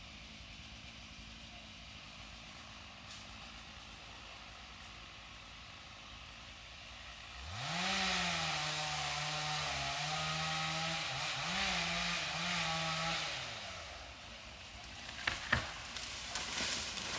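Chainsaw idling faintly, then throttled up about seven seconds in and run at high speed for about six seconds, its pitch dipping a little as if under load in a cut, before dropping back. A few sharp cracks come near the end.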